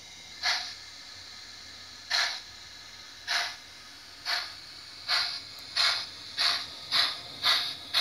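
ESU LokSound V4.0 sound decoder in a Liliput BR 56 model steam locomotive playing steam exhaust chuffs through its stock loudspeaker as the locomotive pulls away. About nine chuffs come ever faster, from well over a second apart to about two a second, over a steady hiss.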